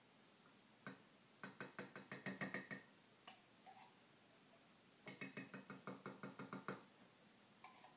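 Two runs of quick, even clicking, about eight clicks a second, each lasting about a second and a half: a kitchen utensil being worked over a saucepan.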